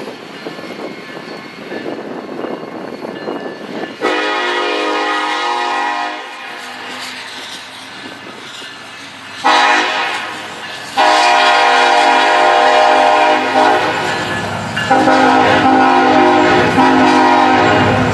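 BNSF SD70ACe locomotive's air horn sounding a horn show of four blasts over the running train: a two-second blast about four seconds in, a short one past halfway, then two long ones close together. The low rumble of the train grows louder near the end.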